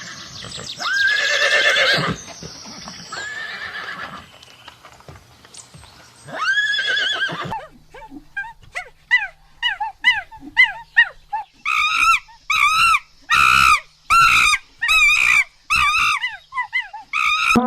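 Horse neighing, with several wavering whinnies in the first half. After that comes a different animal's run of short, rising-and-falling calls, two or three a second and getting louder.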